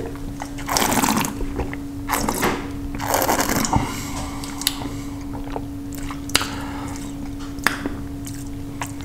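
Red wine being sipped and slurped, air drawn noisily through it in the mouth to taste it, in three bursts within the first four seconds. A few sharp clicks follow, over a steady low hum.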